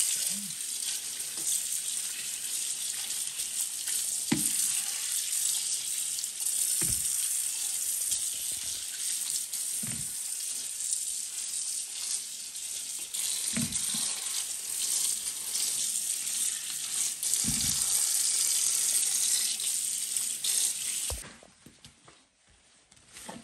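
Kitchen tap running onto plums in a wicker basket in the sink as they are rinsed by hand, with a few soft knocks from the fruit being handled. The water shuts off shortly before the end.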